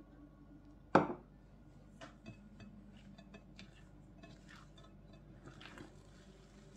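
A single sharp glass knock about a second in. It is followed by faint squelches and small clicks as wet hands stretch and fold a sticky, high-hydration focaccia dough in a glass baking dish.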